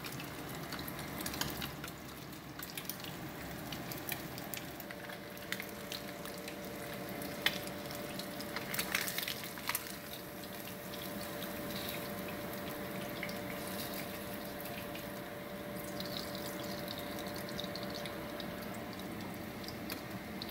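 Tilapia fillets sizzling and crackling in hot oil in a stainless frying pan, with a few sharp clicks and scrapes of a spatula around the middle.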